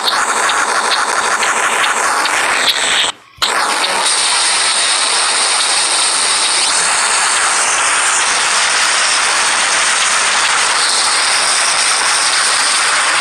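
Loud, steady rushing hiss from a played-back sound effect, cutting out briefly about three seconds in and then running on unbroken.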